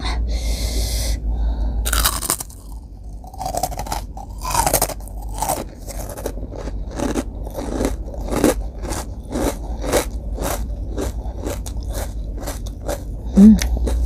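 Crunchy bites and close-up chewing of a fried rengginang, a glutinous rice cracker: a loud bite about two seconds in, then a run of crisp crunches about twice a second.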